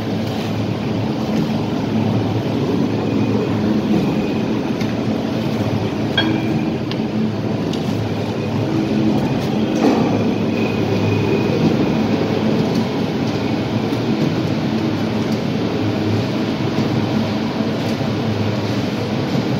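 Platen-type die punching (die-cutting) machine running, a steady mechanical clatter from its drive and swinging platen, with a sharper clack about ten seconds in.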